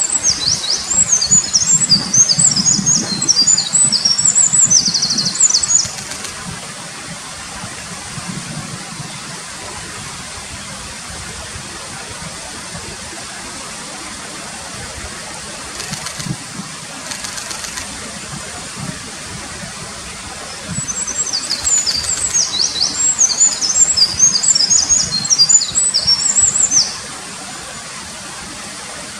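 Eurasian wren singing two long, rapid songs of high, shrill trills and warbling notes, the first at the start lasting about six seconds and the second starting about twenty seconds in. Under and between the songs, the steady rush of a mountain stream.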